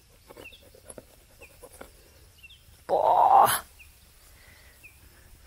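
Small birds giving short, high chirps every second or so, with a few faint ticks. About three seconds in, a loud, rough noise close by, lasting under a second.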